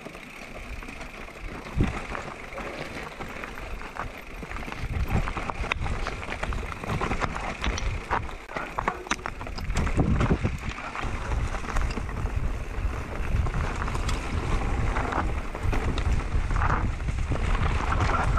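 Wind buffeting the microphone over the rattle and tyre noise of an electric mountain bike riding a rough dirt trail, with scattered knocks from bumps. It gets louder about five seconds in.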